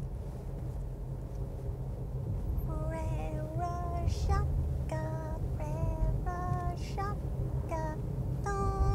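A woman singing a slow melody of held, wavering notes, starting about three seconds in, over the low steady rumble of a car cabin on the move.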